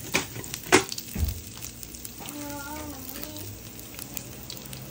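Meatballs sizzling in hot oil in a frying pan, with two sharp clicks in the first second.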